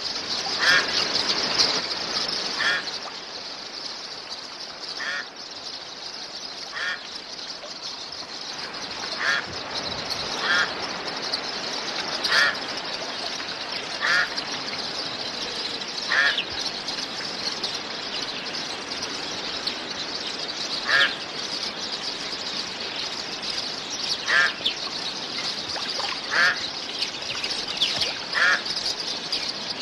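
Outdoor bird calls: short single calls come about every two seconds, with a pause near the middle, over a steady high hiss.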